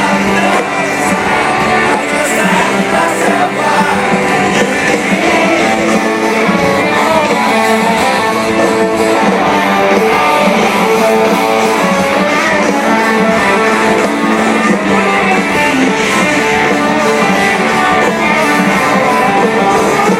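Live rock band playing guitar-led music with singing. The sound is loud and thin, with little bass.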